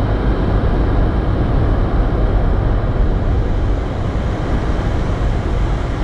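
Steady low rumble of wind and road noise inside a car's cabin as it drives through strong blizzard winds.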